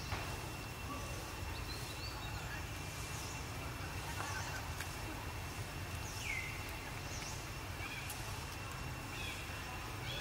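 Short high-pitched chirping calls, several of them falling in pitch, come about once a second over a steady low rumble and a faint steady high tone.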